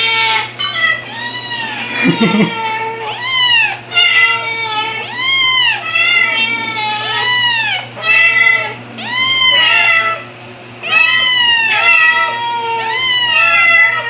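A kitten crying: a long run of high-pitched meows, roughly one a second, each rising and then falling in pitch, with a short pause about ten seconds in.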